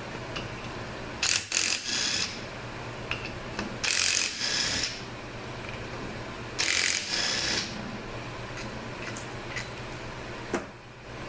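A ratchet runs in three bursts of about a second each, backing out the bolts that hold the halves of a 200-4R transmission's oil pump together. A few short, high squeaks follow near the end.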